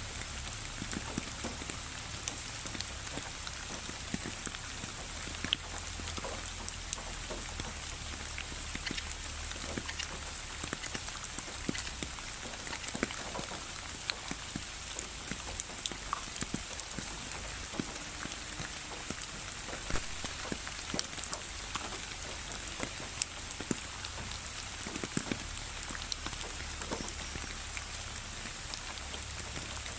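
Steady rain: an even hiss with many separate drops landing close by as sharp ticks.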